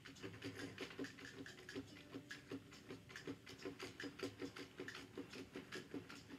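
Faint, rapid, even ticking, about five ticks a second, from a small plastic toy camper bus whose wheels click as it is pushed by hand along a tabletop playset.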